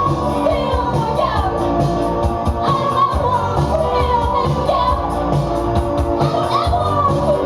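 A live band playing a song, with a singer's voice carrying the melody over a steady beat.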